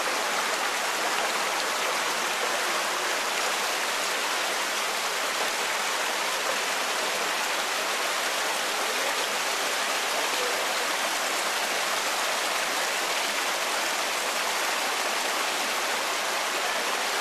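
Rocky stream running fast over boulders and small cascades: a steady rush of water.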